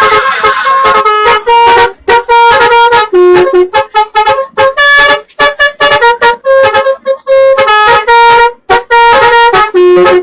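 Indonesian bus 'telolet' basuri musical horn playing a quick melody of short, clipped notes, broken by brief gaps between phrases.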